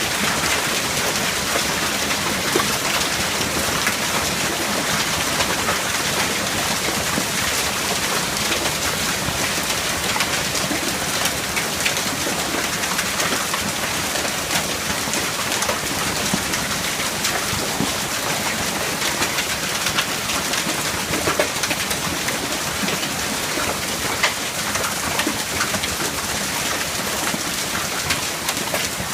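Hail falling steadily: a dense patter of small hits with scattered sharper ticks.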